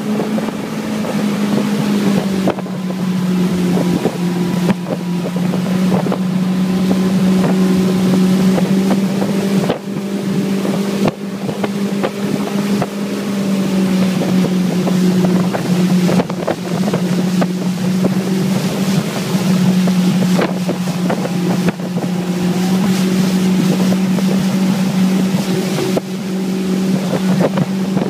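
Motorboat engine running at speed while towing tubes, a steady drone whose pitch wavers only slightly, over the rush of wind and churning wake water.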